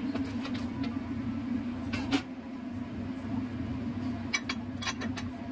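Metal clinks and knocks of a spatula against a stainless steel wok and a steel lid being put on the wok, with the loudest knock a little after two seconds in and a few lighter clicks near the end, over a steady low hum.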